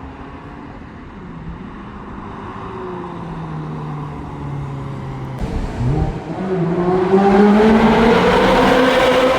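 Ferrari 360's V8 with a Tubi exhaust: a steady engine note at first, then from about six seconds in the car accelerates, its pitch climbing and the sound growing much louder.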